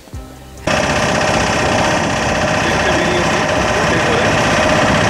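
Tour boat's engine running steadily, cutting in suddenly under a second in.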